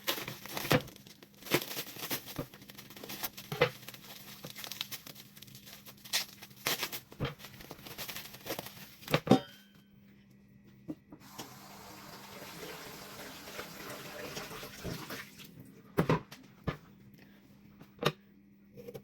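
Kitchen handling noises, with scattered knocks and rustles as broccoli is prepared. About halfway through, a tap runs steadily for four or five seconds, then a few more knocks follow.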